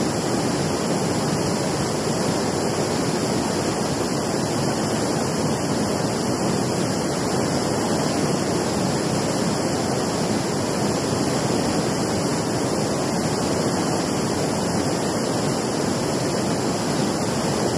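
Steady rushing of flowing river water, an even noise that does not change.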